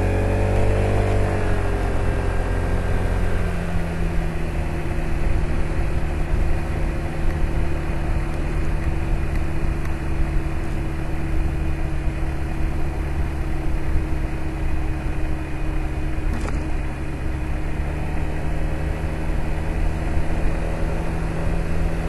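Piaggio BV 350 scooter's single-cylinder four-stroke engine pulling away with its pitch rising over the first couple of seconds, then holding a steady note at cruising speed. A single short click about sixteen seconds in.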